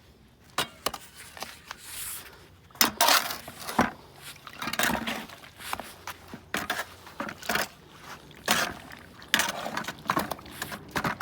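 Portland cement and sand slurry being stirred in a bucket: irregular scrapes and knocks of the mixing tool against the bucket, busier from about three seconds in.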